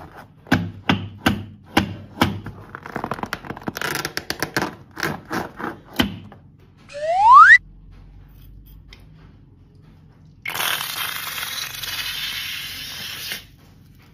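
A liquid-filled rubber balloon squeezed and handled, giving a quick run of sharp taps and squeaks. Near seven seconds a short rising whistle-like tone sounds. From about ten and a half seconds liquid gushes out of the cut balloon into a glass bowl for about three seconds, then stops suddenly.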